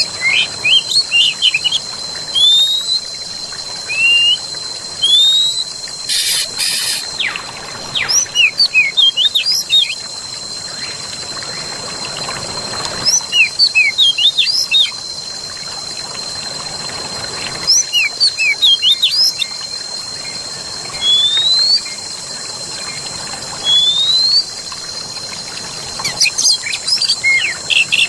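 Forest birdsong: wild birds chirping in bursts of quick, rising whistles every few seconds. Under them run the steady hush of flowing water and a constant high-pitched tone.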